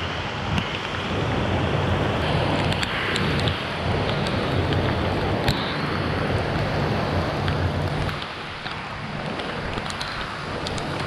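Heavy rain falling, mixed with muddy creek water rushing over a low weir, as a steady hiss with a low rumble underneath. The rumble eases about eight seconds in, leaving mostly the hiss of rain.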